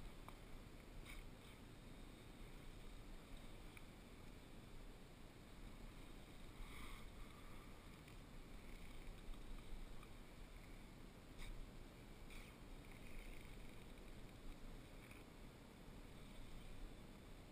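Near silence on a still lake: a faint steady hiss with a few soft, scattered ticks and knocks from fishing gear being handled in a kayak.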